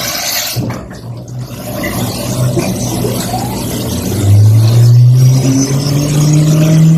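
CNC milling machine running as it cuts acrylic and Corian harmonica combs. About four seconds in, its hum gets louder and rises in pitch, then holds steady, as the machine moves on to cutting the comb slots.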